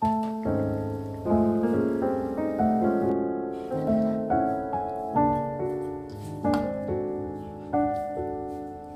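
Background music: a piano playing a slow melody of struck, fading notes over chords. It starts suddenly.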